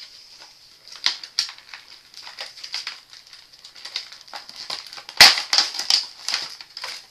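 Clear plastic packaging from a trading card box being handled and pulled apart: irregular crinkling and crackling with sharp snaps, the loudest about five seconds in.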